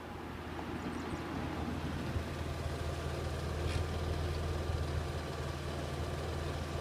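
Audi B5 S4's 2.7-litre twin-turbo V6 on 3-inch downpipes and a catless 3-inch Milltek turbo-back exhaust with resonator and muffler. The car rolls closer, growing louder over the first two seconds, then idles steadily.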